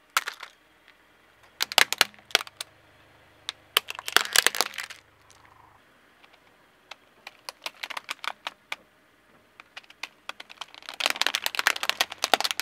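Plastic objects cracking and crinkling as a car tyre rolls over and crushes them: a hard plastic toy pony snapping in the first few seconds, then thin foil-covered plastic party masks crackling flat. The sound comes in several bursts of quick sharp snaps, the densest near the end.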